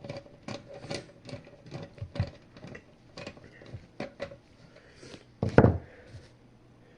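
A run of sharp clicks and taps, about three a second, as the plastic housing of a fire alarm horn strobe is handled during disassembly, with one heavier knock about five and a half seconds in.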